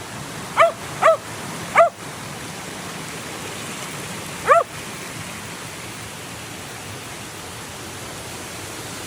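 A dog barking in short, sharp barks, three quick ones about a second in and a fourth a few seconds later, over the steady rush of a waterfall.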